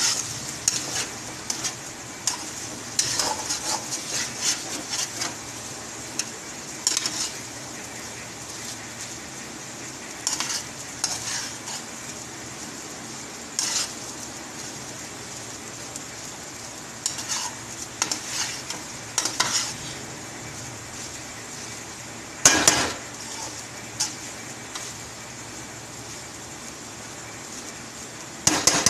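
Spatula stirring and scraping chicken vermicelli (seviyan) in an aluminium kadai over a steady sizzle of frying. The scrapes and clinks against the pan come irregularly, the loudest about three quarters of the way through.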